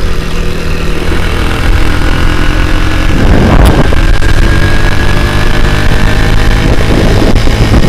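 Motorcycle with a Honda Grand single-cylinder four-stroke engine in a C70 frame, running hard at road speed. Its note shifts about three seconds in and again near the end.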